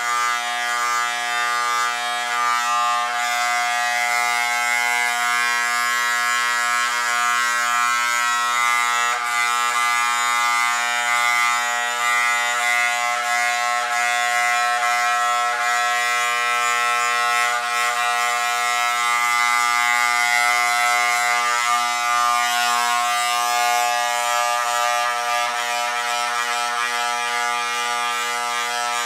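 Corded electric hair clippers buzzing steadily as they are run through the hair on the head, a constant hum with many even overtones.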